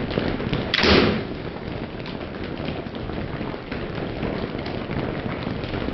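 A single sharp crack about a second in: the shot from a Hoyt RX-3 compound bow striking a wild turkey. A steady hiss of rain runs underneath.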